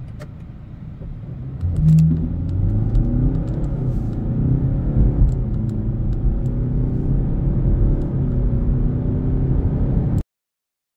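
BMW 520d's four-cylinder diesel engine accelerating hard, its note climbing in pitch several times as it pulls through the gears from about two seconds in. The sound cuts off abruptly near the end.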